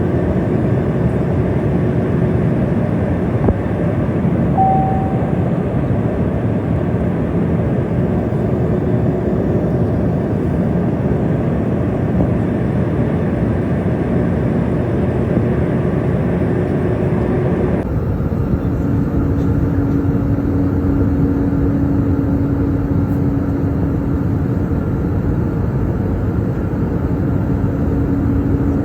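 Steady airliner cabin noise: the even rush of the jet engines and airflow heard from inside the plane in flight. About two-thirds of the way through the sound changes character and a steady low hum comes forward.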